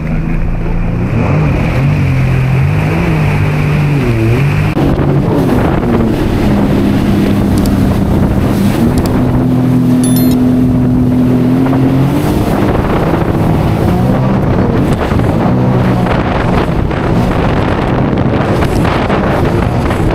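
Sea-Doo Fish Pro jet ski's engine running under way, its revs rising and falling, held steady for a few seconds in the middle, then dropping back. Wind buffets the microphone throughout.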